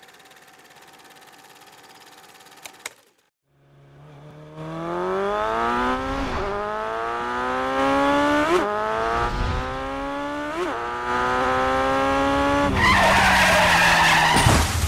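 A faint steady hum, a short gap, then a car accelerating hard, its engine pitch climbing through several gear changes. Near the end the tyres skid with a loud screech as the engine tone drops.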